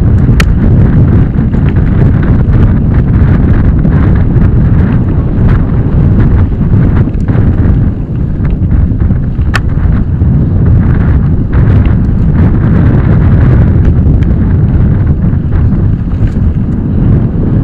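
Wind buffeting a camera's microphone during a fast mountain-bike ride, with the bike rumbling and rattling over a bumpy dirt trail. A couple of sharp clicks stand out, one just after the start and one about halfway through.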